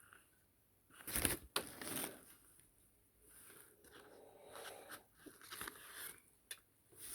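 Faint clicks and scratchy handling noises of small die-cast toy parts being turned over and fitted together by hand, with a few sharper clicks about a second in and a couple more near the end.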